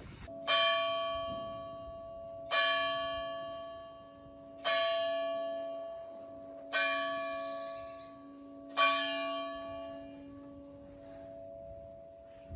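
A single church bell striking five times, about two seconds apart. Each stroke rings on and fades, and the low hum carries on after the last stroke.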